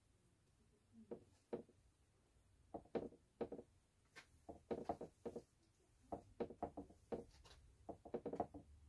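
Paintbrush dabbing and stroking on a stretched canvas: a string of short, soft knocks, two or three a second, starting about a second in.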